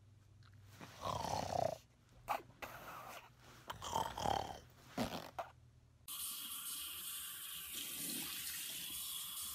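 Several short, breathy snuffles and snorts close to the microphone from a dog nuzzling a sleeping man's face. About six seconds in, tap water starts running steadily into a bathroom sink.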